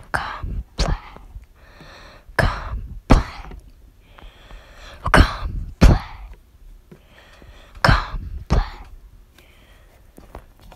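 Knuckles knocking on a wooden surface, two sharp knocks at a time, repeated four times, with soft breathy hissing between the pairs.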